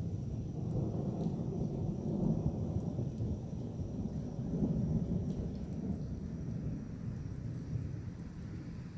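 Distant thunder rolling: a low rumble that swells twice and dies away over the last few seconds.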